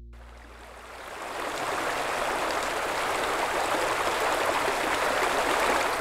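Shallow stream running over stones, a steady rushing of water that fades in about a second in and eases off near the end.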